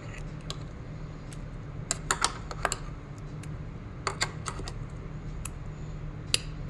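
Steel spoon clinking and scraping against steel kitchen vessels as thick chutney is spooned out, with irregular sharp clicks in small clusters over a steady low hum.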